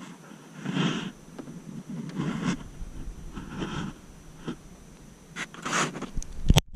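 Handling noise as the camera is picked up and re-aimed: four or five short rustling, scraping bursts about a second apart, then a few sharp clicks just before the end.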